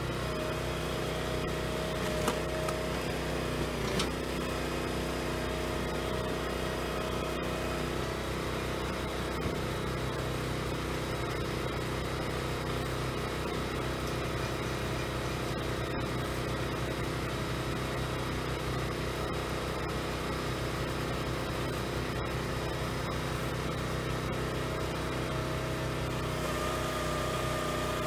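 Small firewood processor's engine running steadily, with a couple of sharp knocks in the first few seconds and a higher steady whine joining near the end.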